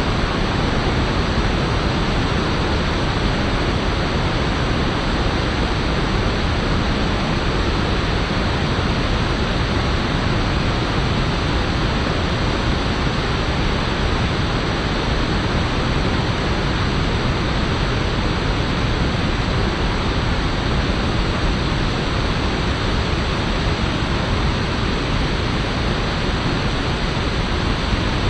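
Rushing river water, a loud steady roar of churning rapids with no let-up.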